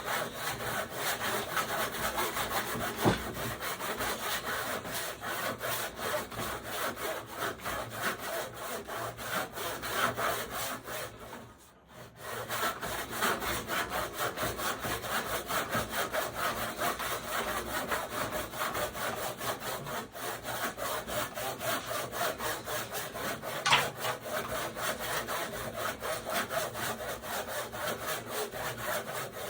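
Secondhand handsaw cutting through wood in steady back-and-forth strokes, from a blade its user doubts is very sharp. The strokes stop briefly about twelve seconds in, and there are two sharp clicks, one near the start and one near the end.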